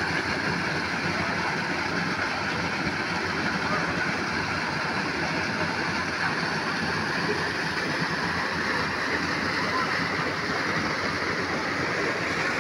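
Steady rush of water pouring over a low drop into a creek pool, churning white.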